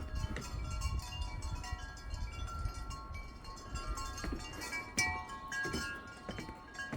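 Many wind chimes ringing irregularly in the breeze, a jumble of overlapping tones at different pitches, with a sharper strike about five seconds in. Wind rumbles on the microphone underneath.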